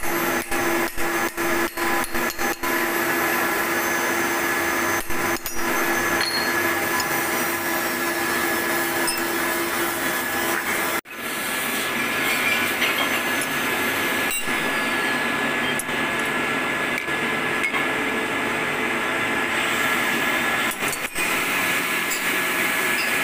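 Milling machine running steadily with a hum and whine while its cutter machines the flats of a metal hexagon nut, with metallic cutting noise. The sound drops out briefly several times in the first few seconds and once about halfway.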